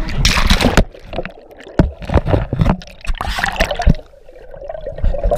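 Water splashing and sloshing, with repeated knocks and rubbing on the housing of an action camera being jostled about on a river inner tube. It goes quieter for a moment about four seconds in.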